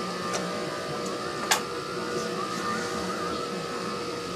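A steady hum made of several fixed tones, with one sharp click about a second and a half in.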